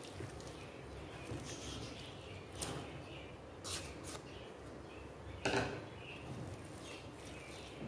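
Hand mixing chicken in a thick spice marinade in a pot, then sliced onions tipped from a small bowl into it, giving a few short taps and rustles; the loudest comes about five and a half seconds in.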